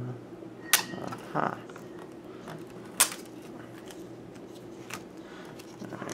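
Hard clear plastic display box being handled and opened: two sharp plastic clicks a little over two seconds apart, a short scraping rustle between them, and light tapping.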